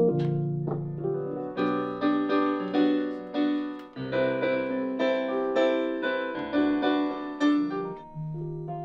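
Stage keyboard playing piano chords: a held chord, then chords struck about two or three times a second, easing back to a softer held chord near the end.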